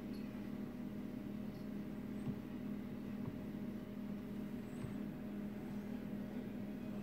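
Excavator's diesel engine idling with a steady low hum, with a few faint knocks.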